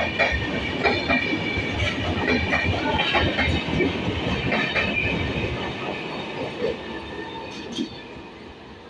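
Passenger train coaches rolling past, their wheels clacking over rail joints in quick, irregular knocks, fading over the second half as the train draws away.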